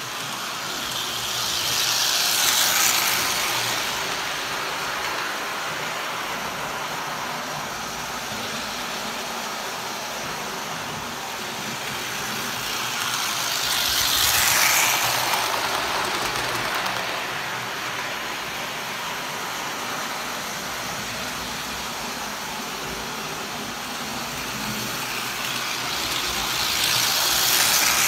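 McCoy Standard Gauge tinplate toy trains running on metal three-rail track: a steady rolling rattle of metal wheels on the rails together with the whir of the electric motors. It swells three times, about 2.5 seconds in, at the middle and near the end, as a train passes close by.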